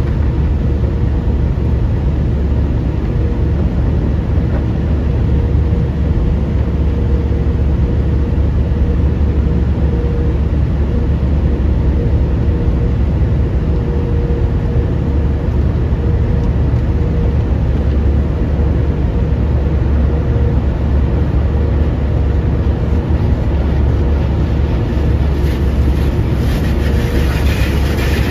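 Automatic car wash heard from inside the car's cabin: a steady low rumble with a faint hum, and water and foam washing over the car. Near the end a brighter hiss of rinse water spraying the windshield comes in.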